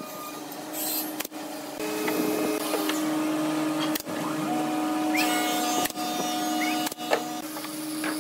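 Steady mechanical hum of workshop machinery, its held tones shifting abruptly several times, with a sharp click about seven seconds in.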